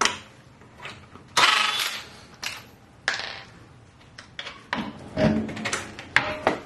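A couple of short bursts from a cordless impact wrench spinning lug nuts off a car wheel, mixed with metallic clinks of loose lug nuts. Near the end come clicks and knocks as the wheel is worked off the hub.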